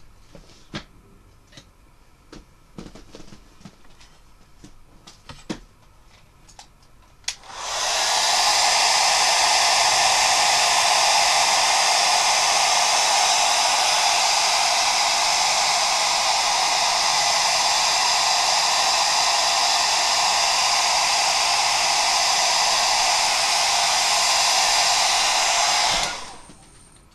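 Handheld Conair 1875-watt hair dryer switched on about seven seconds in, blowing steadily at high speed, then cut off about a second before the end. It is flash-drying freshly airbrushed paint on a crankbait so the paint won't smudge. Before it, only a few faint clicks and taps from handling.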